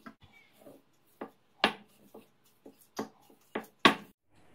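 Wooden rolling pin rolling out dough on a wooden board, knocking sharply against the board about nine times at irregular intervals, loudest near the end.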